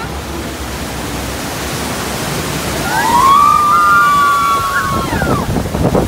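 Steady rush of churning whitewater around a river-rapids raft. About three seconds in, a rider lets out a long high-pitched scream that falls away after about two seconds, and water splashes against the raft near the end.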